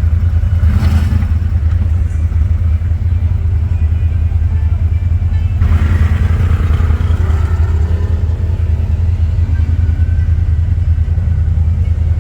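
ATV engine running with a steady low rumble, surging briefly about a second in and again near the middle.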